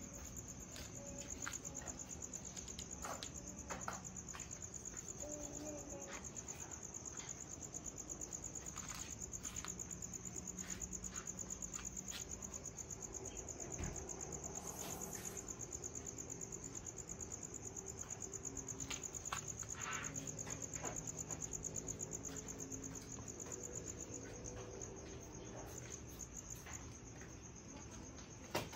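A cricket trilling steadily at a high pitch, with a few faint clicks and taps scattered through, and one sharper click near the end.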